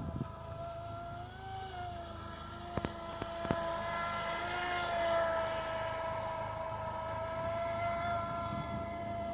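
Electric RC speedboat, a Mini Princess on a 4-cell battery, running flat out across the water: a steady high motor whine that wavers slightly in pitch as the boat turns and grows loudest about halfway through. Two short clicks come about three seconds in.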